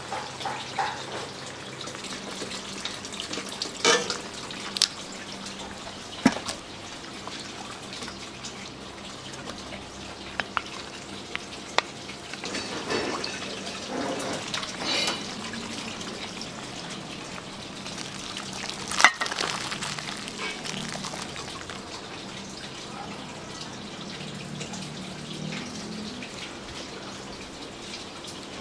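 Kitchen cooking sounds: running or splashing water and liquid, with scattered sharp clinks and knocks of utensils over a faint steady low hum. The loudest knock comes about two-thirds of the way through.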